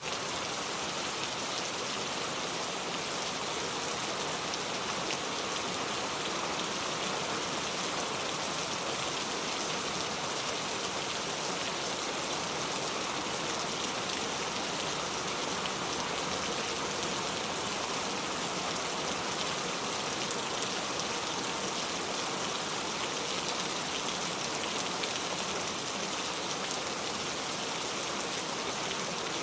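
Steady rain falling, an even hiss of many drops with no thunder, briefly dropping out for an instant right at the start.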